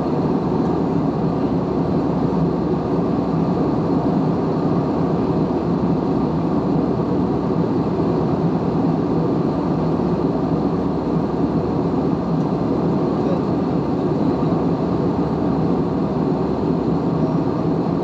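Steady cabin drone of a Boeing 737 airliner in flight: jet engine and airflow noise, even and unbroken.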